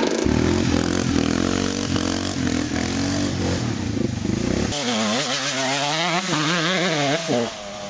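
Off-road motorcycle or quad engine running steadily; about five seconds in, the sound cuts to an engine revving up and down over and over.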